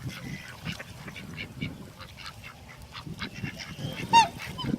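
A flock of ducks and geese calling: many short quacks and honks, with one loud call about four seconds in.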